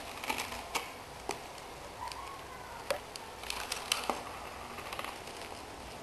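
Foil-wrapped chocolate coins clicking and crinkling as they are set by hand into a box, in irregular small taps over a faint steady room hiss.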